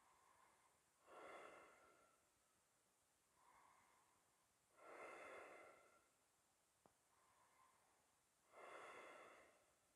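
Faint, slow, deep breathing by a person holding a yoga pose: three full breaths about every three and a half seconds, each a softer phase followed by a stronger one.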